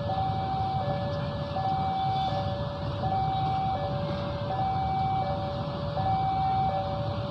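Two-tone electronic warning alarm, alternating a high note and a low note, each about 0.7 s, in an even repeating pattern. Under it is the low steady rumble of an arriving diesel locomotive.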